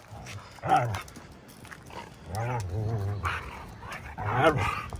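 Two dogs play-wrestling, one vocalizing with pitched growls and grumbles in several bursts: a short one near the start, a longer one of about a second midway, and another near the end.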